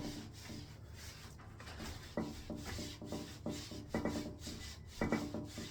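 Irregular rubbing and scraping strokes, cleaning old wax residue from around a toilet flange before a new wax ring goes on.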